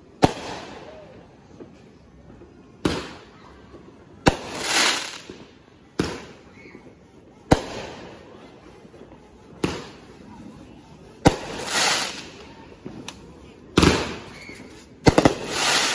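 Aerial fireworks going off in a steady string: sharp bangs about every one to two seconds, each fading away after it. Several bangs are followed by a rushing noise that swells and fades over about a second as the shells break.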